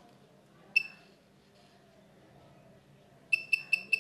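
Piezo buzzer of a homemade non-contact AC voltage detector beeping at a high pitch: one short beep about a second in, then rapid beeps at about five a second near the end, signalling that the detector senses the live (phase) wire.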